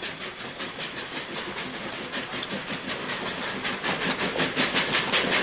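Steam locomotive working along the track: a quick, even beat of exhaust chuffs over hissing steam, growing louder toward the end.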